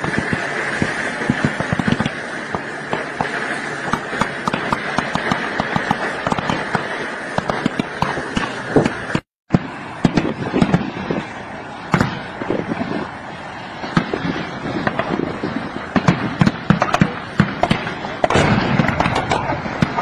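Gunfire in the field: many sharp cracks in quick succession over a noisy background, with a short break in the sound about nine seconds in.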